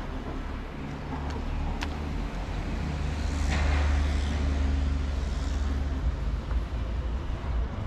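A motor vehicle driving past on the street, its engine rumble and tyre noise swelling to a peak about halfway through and then fading.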